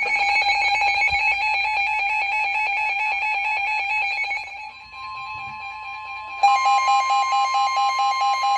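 Weather radio receivers sounding alert tones ahead of a severe thunderstorm warning. A buzzing alarm tone with a fast stutter fades out about five seconds in, as the broadcast's steady, single-pitch warning alarm tone begins. About a second and a half later, a rapidly pulsing beep from a receiver joins that steady tone.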